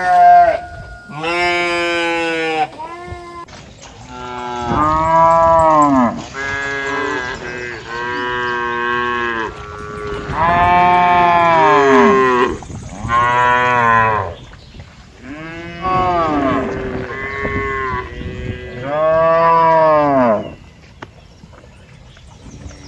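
Cattle mooing, a string of long calls one after another that partly overlap, falling quiet near the end.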